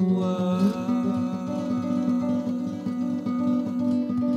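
Nylon-string classical guitar played fingerstyle in flowing arpeggios, notes ringing over one another in a continuous pattern.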